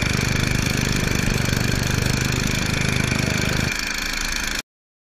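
Small petrol engine of yard power equipment running steadily with a fast, even pulse. About three and a half seconds in its low rumble drops away, and the sound cuts off suddenly near the end.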